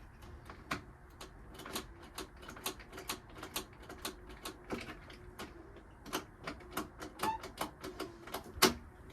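Irregular clicks and light knocks from the plastic seat and seat latch of a SYM DD Sport 50cc scooter being pushed down and worked; the seat is stuck and won't release. One sharper knock comes near the end.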